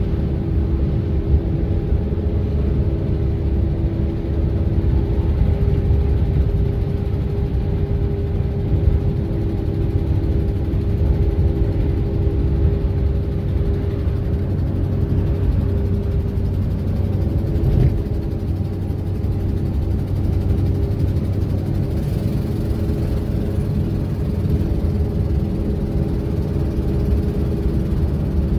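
Steady engine drone and low road rumble heard from inside a vehicle's cab as it drives along a snow-covered road, with a faint hum running under it.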